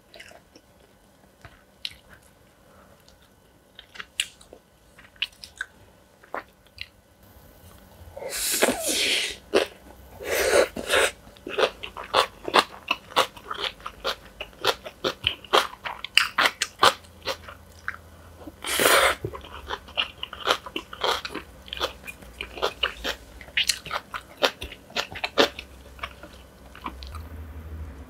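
Close-miked chewing and crunching of food: quiet for the first several seconds, then rapid, dense crunching with a few louder rushing bursts about 8 and 19 seconds in.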